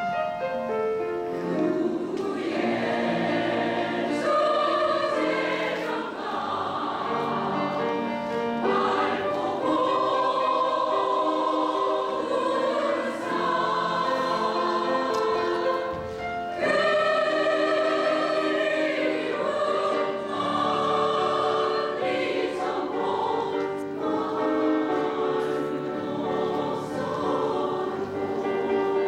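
Women's choir singing a Korean song in harmony, with piano accompaniment.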